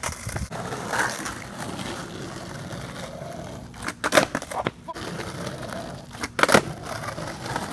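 Skateboard on asphalt during trick attempts, which look like fakie big spins: the wheels roll with a steady gritty hiss, broken by sharp clacks of the tail popping and the deck slapping down on the street. The loudest clacks come about four seconds in and again about six and a half seconds in.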